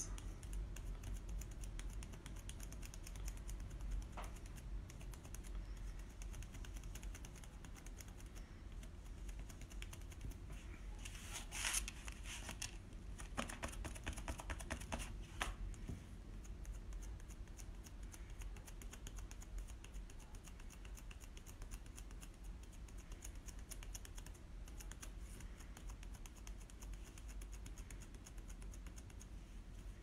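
Faint, rapid light tapping of a cosmetic sponge dabbing paint through a stencil onto a wooden board, with a few louder rustles of the stencil around the middle.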